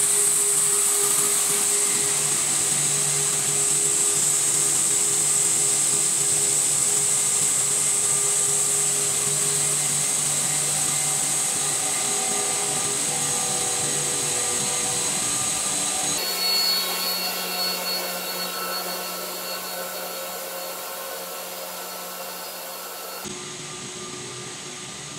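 A JWELL PE pipe extrusion line running in steady production: a continuous machine noise of motors, pumps and fans with a strong high whine and steady hum. The noise changes abruptly twice and grows gradually quieter toward the end.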